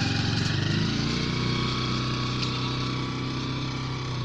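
A small engine running steadily with a fast, even pulse, slowly growing fainter.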